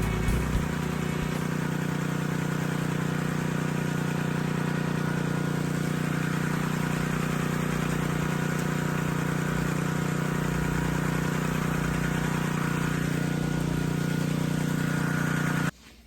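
Background music: a long, unchanging held chord that cuts off abruptly near the end.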